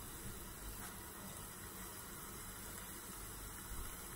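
Faint, steady sizzle of hot oil frying browned onions in a small saucepan. This is the tempering (tadka) stage, as whole cumin seeds are spooned in.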